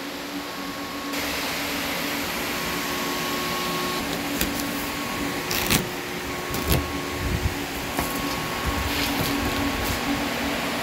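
Cooling fans of several running GPU mining rigs, a steady whirring hiss with a low hum. The noise grows fuller about a second in, and a few short knocks come through the middle.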